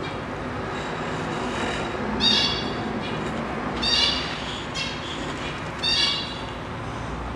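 Three short, high-pitched animal calls, about two seconds apart, over a steady background hiss.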